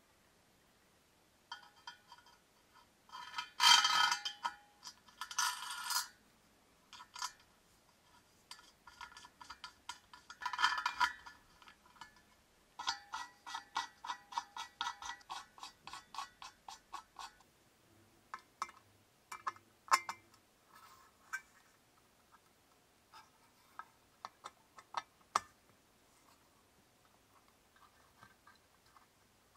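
Small brass screws and nuts being fitted into a polished copper reflector bowl: metal clinking and scraping against the copper, then a quick run of light ticks, about five a second, as a nut is spun down a threaded terminal post, followed by scattered single clicks.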